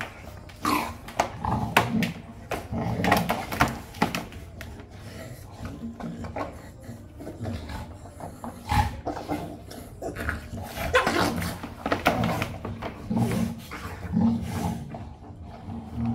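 Pit bulls wrestling on a rubber mat: dogs growling in irregular bouts amid the scuffle of paws and bodies.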